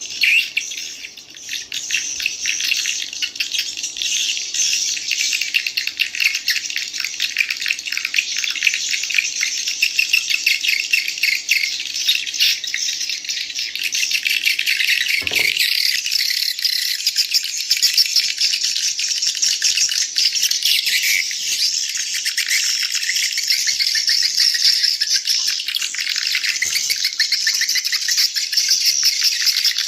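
Edited call-sound recording of swiftlets (burung walet), used to lure the birds to a swiftlet house: a dense, continuous, rattling twitter of many calls layered together. A brief low thump about 15 s in.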